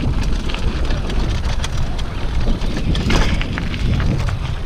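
Mountain bike riding fast down a dirt trail: wind noise buffeting the microphone over the rumble of tyres on dirt, with many short clicks and rattles from the bike.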